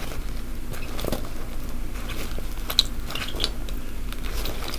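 Scattered small clicks and crinkling from hands handling a fabric backpack and its metal pin-back buttons, over a steady low hum.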